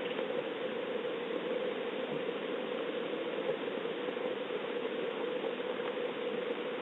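Steady rain falling, heard as an even hiss through a Ring security camera's microphone.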